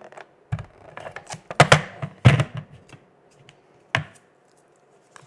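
Scotch Advanced Tape Glider (ATG tape gun) applying adhesive to a cardstock strip: a run of clicks and clacks, loudest about two seconds in, then one sharp click about four seconds in.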